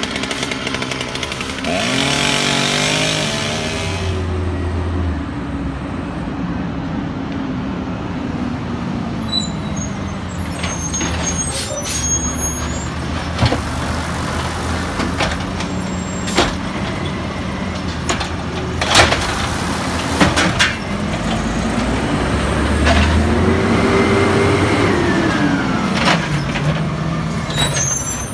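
Peterbilt 320 natural-gas automated side-loader garbage truck at work: its engine runs throughout and revs up twice, a few seconds in and again near the end, as the hydraulic arm works. A burst of air hiss comes with the first rev. In the middle, several sharp bangs are heard as the cart is lifted, shaken out into the hopper and set back down.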